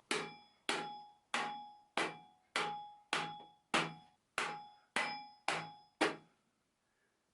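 Metal hammer striking a makeshift PVC-pipe crown race installer on a bicycle fork's steerer tube: about eleven evenly spaced blows, roughly one and a half a second, each with a brief metallic ring, stopping about six seconds in. The crown race is a tight fit and is not going on.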